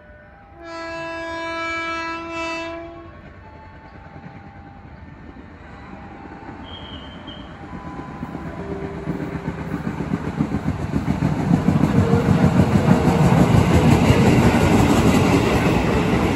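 KRL Commuter Line electric train, an ex-JR 205 series set, sounding its horn in one blast of about two seconds about a second in. It then approaches with a rising rumble and a quick, even clatter of wheels over the rail joints, loudest as it runs close past.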